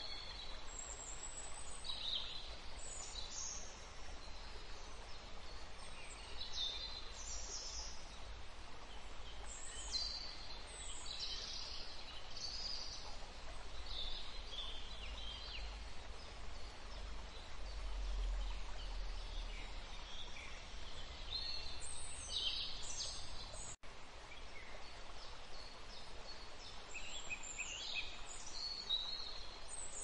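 Rainforest ambience: many birds chirping and trilling over a steady hiss. A low rumble swells around the middle, and the sound drops out for an instant about two-thirds of the way through.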